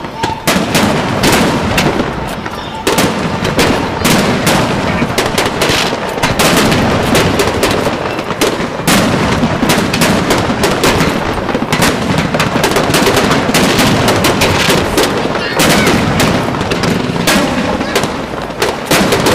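Aerial fireworks shells bursting in quick succession: a dense run of loud bangs and crackles, many close together, with no let-up.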